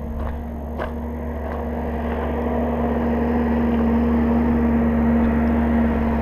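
A steady machine hum carrying one low tone, slowly growing louder, with its pitch starting to drop right at the end; a few soft knocks sound in the first two seconds.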